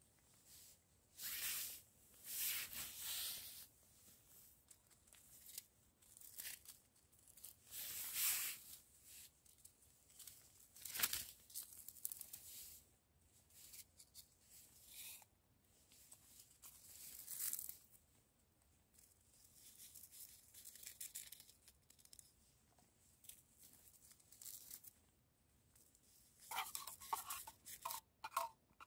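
A small packet torn open and crinkled in a series of rustling bursts, then near the end a metal spoon stirring and clinking quickly against a stainless steel mug.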